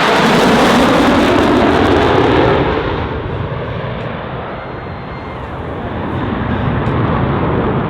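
Jet noise from Blue Angels F/A-18 Hornets passing low. The pitch drops as a jet goes by, and the sound fades about three seconds in. Then the jet noise builds again toward the end as another approaches.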